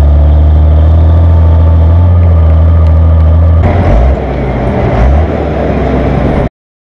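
Timberjack 460 skidder's diesel engine running, heard close to its exhaust stack as a loud, steady deep drone. About four seconds in it changes abruptly to a rougher, noisier engine sound that rises and falls, and it cuts off suddenly near the end.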